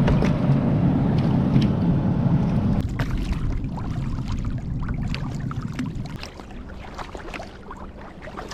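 Low drone of a boat's engine running, fading after about three seconds, with light clicks and splashes over it.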